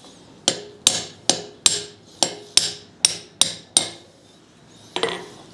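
Hammer blows on steel, about three a second, each with a short metallic ring: nine quick strikes, then a single blow after a pause. The blows are working to split apart a poorly bonded forge weld.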